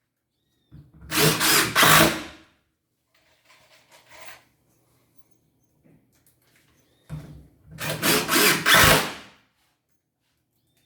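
Power drill running in two bursts of about two seconds each, with faint handling noises between them.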